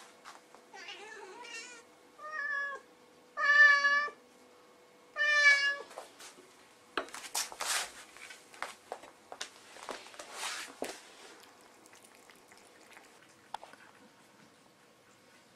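A domestic cat meowing four times, the later calls longer and louder. Then come a few seconds of uneven wet eating and licking noises as cats eat tuna wet food from glass bowls, fading to faint scattered ticks.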